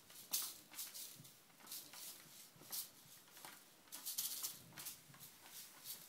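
British Blue Shorthair kitten batting at a fluffy toy on a spring wire above a plastic cat toy: irregular short, soft rustles and swishes, a few a second.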